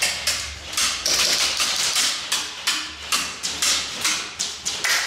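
Airsoft gunfire: a rapid, irregular string of sharp clicks and snaps, several a second, with short hissy bursts between them.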